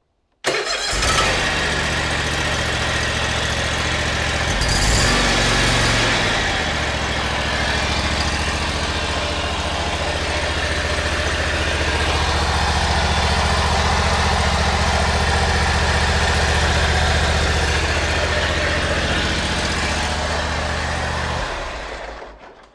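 eXmark zero-turn mower engine starts abruptly and runs steadily for about twenty seconds, a little louder for a moment about five seconds in, then is shut off and winds down near the end. It is running with the PTO clutch removed and the dry-bearing noise is still there; the owner traces it to a worn flat idler pulley bearing on the drive belt.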